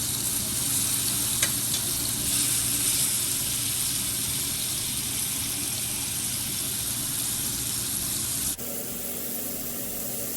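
Pieces of steak sizzling in hot olive oil in a pot, a steady frying hiss. Near the end it drops suddenly to a quieter sizzle.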